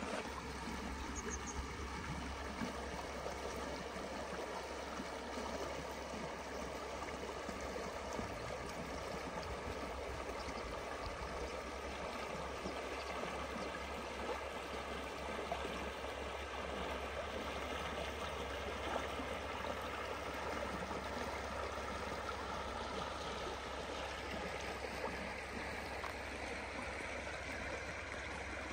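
A shallow stream flowing over a stony bed, a steady rush and burble of water over rocks and riffles.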